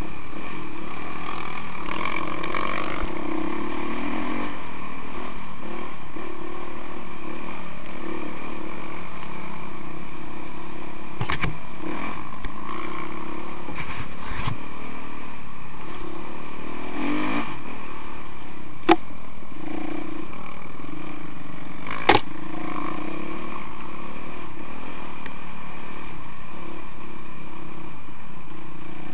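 Dirt bike engine running on a trail, its pitch rising and falling with the throttle, with several sharp knocks, the two loudest about two-thirds of the way through.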